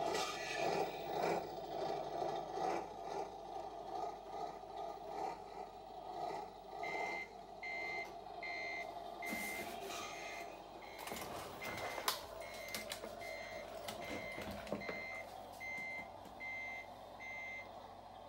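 Remote-control Mercedes Actros 6x6 truck model's sound unit: a steady engine-like noise, then from about seven seconds in a reversing alarm beeping evenly, a little more than once a second, with a few clicks and knocks along the way.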